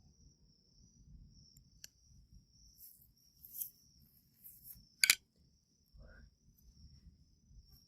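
Crickets chirring steadily in the background, with a few brief rustles. About five seconds in comes a sharp double click, the loudest sound here.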